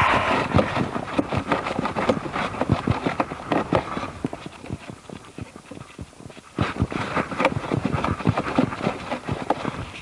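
Irregular clicking, knocking and rustling as shredded bamboo and leaves are pulled out of a clogged, unplugged electric garden shredder; the clatter eases off for a couple of seconds about halfway through, then picks up again.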